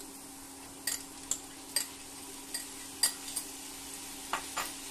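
Light clicks and taps of a small bowl and utensils as chopped tomato is tipped into a frying pan of vegetables, about eight scattered ticks over a faint steady hum and soft sizzle.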